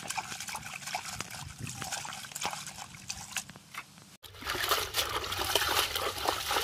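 Water trickling and splashing as leafy stems are rinsed by hand to clear off the soil, with small splashes throughout; it gets louder about four seconds in.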